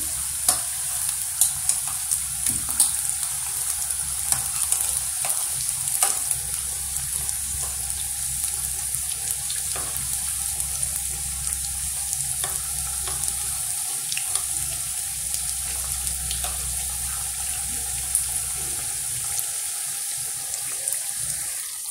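Potato samosas deep-frying in hot oil: a steady high sizzling hiss with scattered crackles and pops as they cook toward golden.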